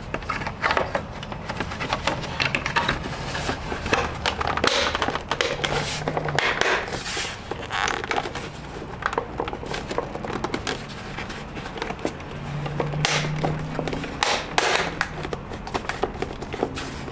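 Plastic cap of a Toyota Tacoma side mirror being pressed back onto the mirror housing by hand: irregular popping, cracking and scraping of the plastic clips as it is worked into place.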